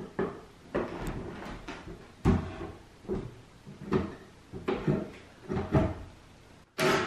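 Cordless impact driver in short, irregular bursts, with knocks of tool and wood, as a long screw is driven at a steep angle into a plywood shelf joint.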